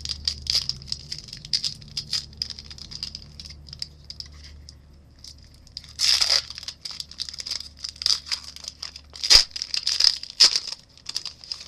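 Wrapper of a 2010 Leaf MMA trading card pack being torn open and crinkled by hand: a run of crackles, a longer rip about six seconds in, and sharp loud crackles near the end.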